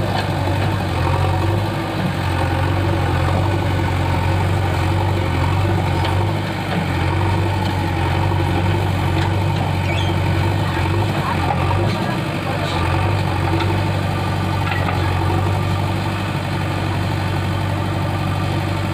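Diesel engine of a JCB 3DX backhoe loader running steadily at a low, even speed.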